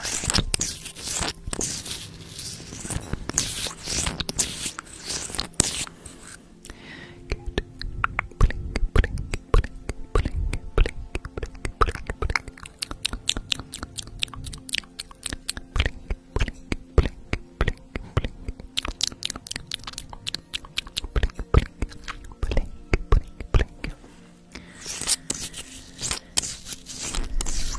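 Close, irregular scratching and crackling of fingers working right on a microphone's grille, an ASMR mic-scratching trigger, busiest in the first few seconds and again near the end.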